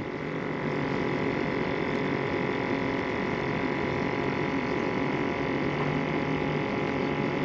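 Steady electric hum with a thin high whine over it, unchanging throughout.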